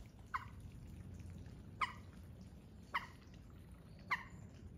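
Duck calls: a short peep that slides downward in pitch, given four times about a second apart, over a faint steady low rumble.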